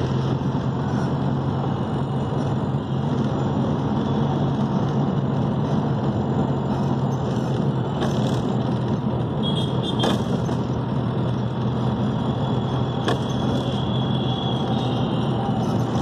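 Steady engine drone and road noise of a moving taxi, heard from inside the cabin, with a few faint clicks and brief high tones along the way.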